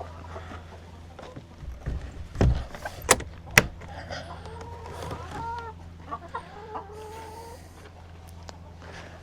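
Hens clucking, with a few drawn-out wavering calls in the middle. Three sharp knocks come a few seconds in.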